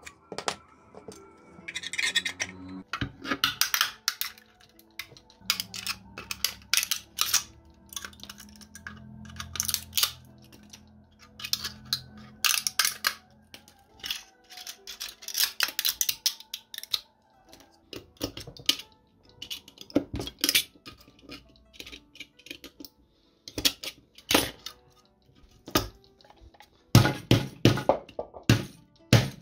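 Irregular sharp clicks, snaps and short scraping rasps of hard PLA plastic as support material is cleaned off 3D-printed parts with hand tools.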